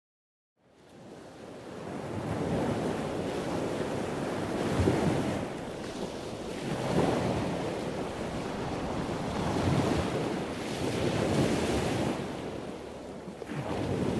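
Ocean surf: a steady rush of waves that fades in about half a second in and swells and eases every couple of seconds.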